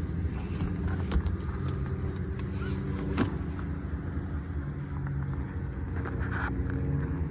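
An engine running steadily at idle, a low, even hum, with a few light clicks and knocks of something being handled.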